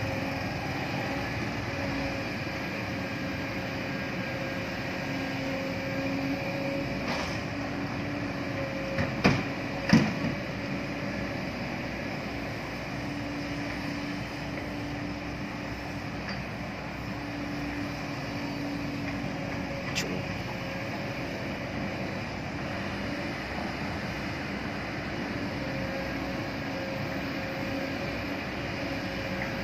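Kobelco hydraulic excavator's diesel engine running steadily, its tone rising and easing as it works. Sharp knocks sound about nine and ten seconds in, and once more near twenty seconds.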